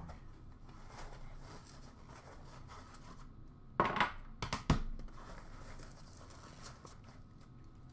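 Hands handling a hockey card box and its foam card tray: light rustling and scraping, with a few sharp knocks and scrapes about four to five seconds in.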